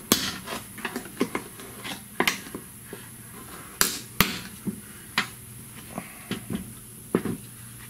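Irregular knocks and clicks of hand work on a truck's plastic fuel pump module in the fuel tank opening: parts and tools being handled and tapped, with a pair of sharp knocks about four seconds in.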